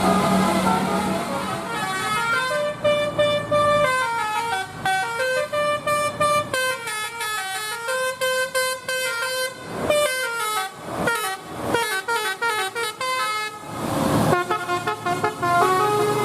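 Bus telolet horn (Basuri multi-tone horn) playing a melody of stepped notes, with a fast run of short notes and a few short bursts of hiss in the second half; a low hum sits under the first two seconds.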